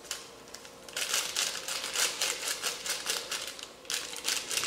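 Small plastic-foil sachet of powdered passion fruit juice mix crinkling in quick, rapid strokes as it is shaken and tapped empty into a blender jar. The crinkling starts about a second in, stops briefly near the four-second mark, and comes back once more near the end.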